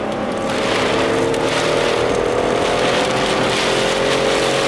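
Car driving through heavy rain and wind, heard from inside the cabin: a steady engine and tyre hum under a constant wash of rain and wind against the windows.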